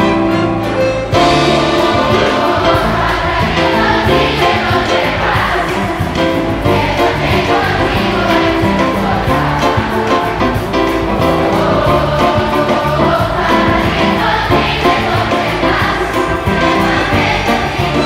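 Large children's choir singing in Spanish with a full school orchestra, including trumpets, trombones and strings. The full ensemble comes in loudly about a second in.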